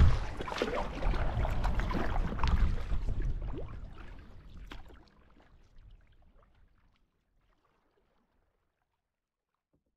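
Water lapping and splashing against the bow of a gliding canoe, with small drips and slaps, fading out about halfway through.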